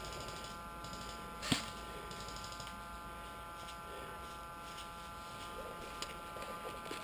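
A single sharp airsoft gun shot about a second and a half in, with faint, rapid distant airsoft gunfire here and there, over a steady high electrical whine.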